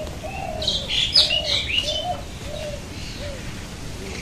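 Birds chirping: a cluster of short, high chirps, loudest about a second in, over lower curved call notes that repeat about every half second, like the cooing of doves.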